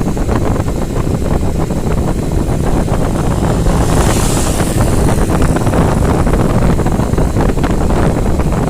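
Wind buffeting the microphone: a loud, steady low rumble with irregular crackle and a brief rise in hiss about four seconds in.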